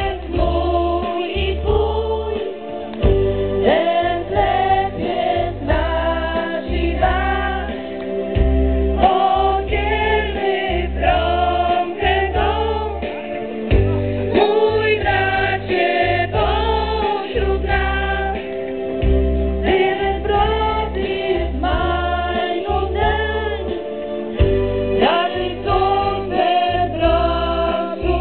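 A trio of women singing together into microphones through a PA system, over an amplified accompaniment with a bass line that changes about once a second.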